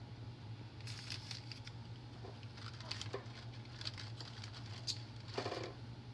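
Short bursts of crinkling and crackling as Oreo cookies are handled and pressed into a baked brownie crust. The bursts come four or five times, over a steady low hum.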